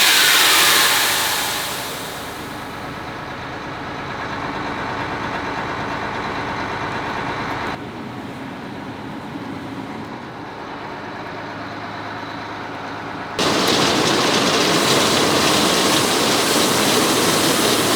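Diesel grain truck's engine running, heard from the cab, with a loud rush of noise fading away over the first couple of seconds. The sound changes abruptly twice: it drops quieter about eight seconds in, then turns much louder and noisier about five seconds later.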